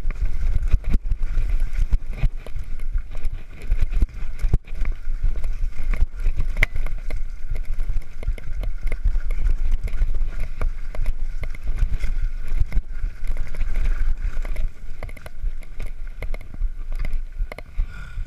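Specialized Enduro Comp 29 mountain bike riding fast down a dirt trail: a constant low rumble of tyres and wind buffeting, with frequent knocks and rattles as the bike and camera mount jolt over roots and rough ground.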